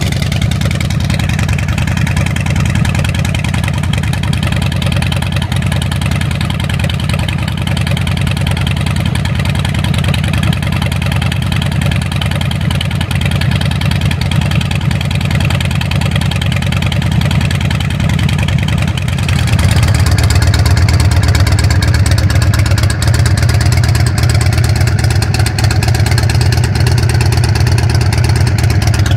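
Harley-Davidson FXDB Dyna Street Bob's air-cooled V-twin idling steadily through its exhaust. About two-thirds of the way through, the sound switches to a second Street Bob idling louder and deeper.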